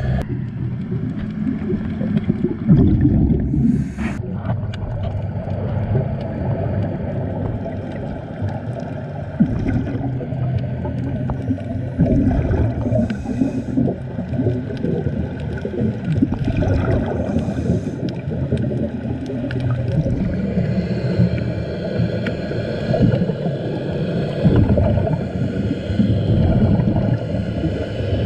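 Muffled underwater sound through a camera housing: a diver's scuba regulator breathing, with exhaled bubbles gurgling in swells every few seconds over a low steady hum.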